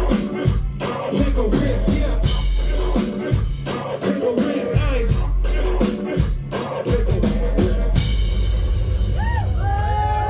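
Hip hop beat with a heavy held bass line, regular hi-hats and scattered vocal snippets. The beat drops out about eight seconds in, leaving a noisy wash with gliding tones.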